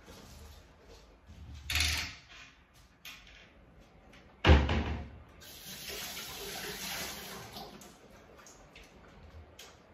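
Kitchen handling sounds out of shot: a short scraping rustle about two seconds in, then a sharp knock about halfway through, which is the loudest sound. A steady hiss follows for about two seconds.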